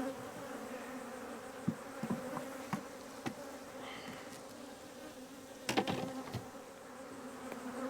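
Honeybees humming steadily around an open hive. Several light wooden knocks and clicks from the frames and tools, with a louder clatter of knocks about six seconds in.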